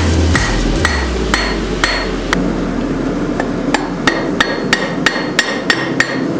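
Blacksmith's hand hammer striking a red-hot railroad spike on a steel anvil, bending the spike head over the horn. The blows are sharp and ringing, a few spaced strikes at first, then a steady run of about three a second.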